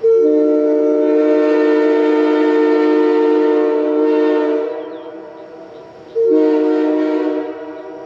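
Early-1960s Canadian sand-cast, ribbed-cap Airchime K3H three-chime train horn blown on air: a long chord blast of about four and a half seconds, then a short blast of just over a second. Its number 1 bell, by the owner's account, still has a slight warble.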